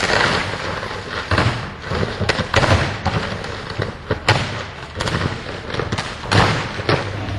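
High-voltage arcing and explosions at a failing electrical substation: an irregular series of sharp, loud bangs, about ten of them, as capacitors release their stored energy. A steady low hum runs underneath.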